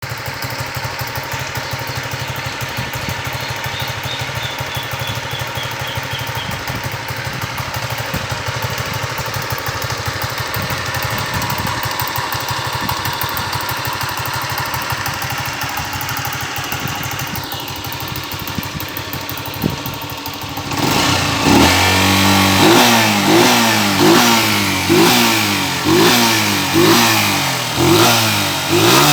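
1978 Honda CG 125 'Bolinha' single-cylinder four-stroke engine idling with a steady, rapid beat, rumbling like a tractor. About twenty seconds in, the throttle is blipped over and over: about eight quick revs in a row, each rising and falling.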